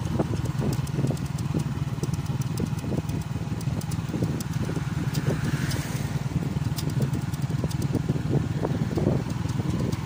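Motor vehicle driving along a road: a steady low engine drone with road noise and many short knocks and rattles.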